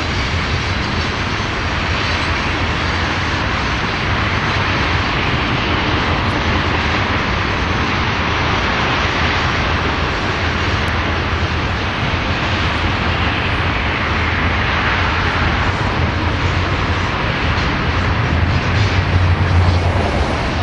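Freight train of ethanol tank cars rolling past: a steady roar of wheels on rail, with a low rumble swelling near the end.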